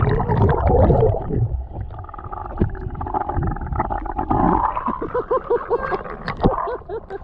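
Muffled underwater sound through a waterproof camera housing in shallow water: low rumbling and gurgling of water moving against the housing, loudest in the first couple of seconds.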